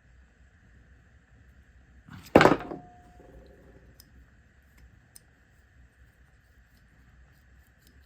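A single loud clatter about two seconds in, as a small metal tool or part is set down on a hard surface, with a brief ring after it; a few faint clicks follow.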